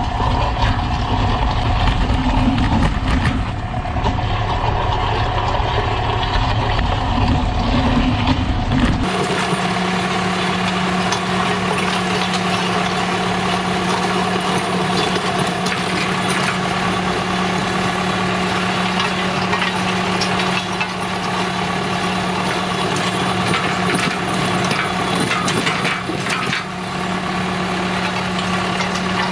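Tractor engine running steadily and driving a Jansen TBG-300 PTO-powered post-hole auger as it bores into stony soil. About nine seconds in, the sound changes abruptly from a heavy low rumble to a steadier engine hum with one clear steady tone.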